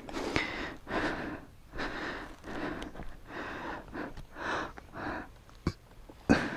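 Quick, heavy breathing close to a helmet-mounted microphone, one breath every half second to second. Two sharp knocks near the end, the second the loudest.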